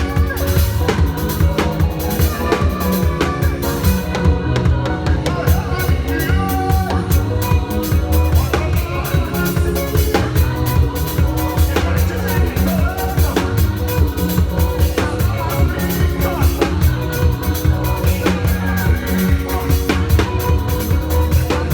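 Live church praise band playing fast music, driven by a busy drum kit with heavy bass drum and snare hits over a bass line.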